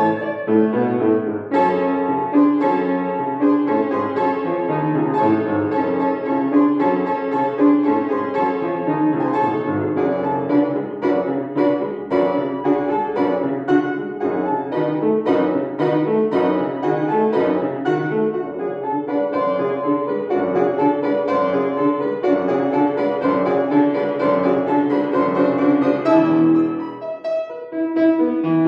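Solo piano playing a classical piece, a steady run of struck notes, with a short pause between phrases near the end.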